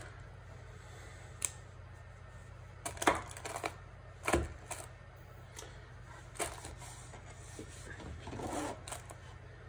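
Handling noise at a workbench: a few light, scattered taps and clicks as wax paper and small armature wire are pressed and tacked down on a board, over a low steady hum.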